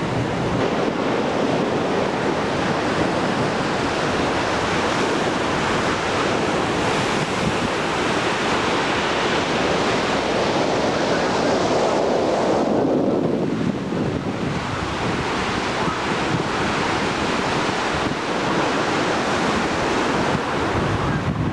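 Steady rush of wind over the microphone together with the wash of the sea, heard from the open bridge of a surfaced submarine at sea. The hiss eases for a moment a little past halfway.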